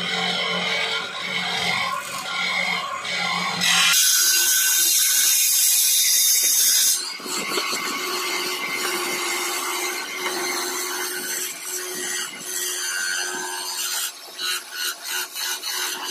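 Wood lathe spinning a wooden stand leg while a hand-held turning tool cuts it: a continuous scraping hiss of the cut over the lathe's hum. About four seconds in the cut turns loud and hissy for a few seconds, and near the end the sound comes and goes in quick pulses.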